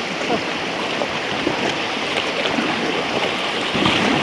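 Steady rush of river whitewater around a raft.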